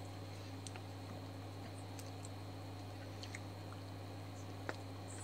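A person eating ice cream with a spoon from a pint container: faint mouth and chewing sounds with a few scattered small clicks, over a steady low hum.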